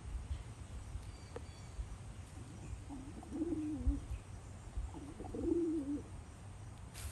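A fluffy black chicken making two low, wavering murmuring calls, each about a second long, a couple of seconds apart.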